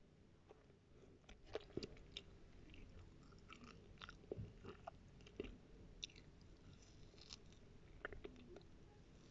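Near silence: scattered soft clicks and crackles close to the microphone, irregularly spaced, over a faint low hum.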